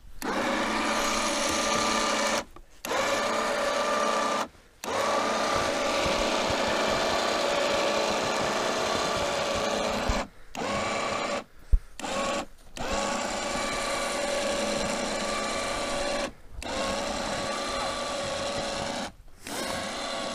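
Small electric winch motor running with a steady whine. It is stopped and restarted about seven times in short breaks, with a sharp click near the middle.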